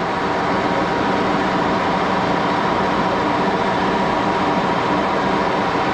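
80-year-old Axelson heavy-duty gear-head engine lathe running steadily, a constant gear-drive hum with several steady tones, while turning a thin drill-rod workpiece against a follow rest.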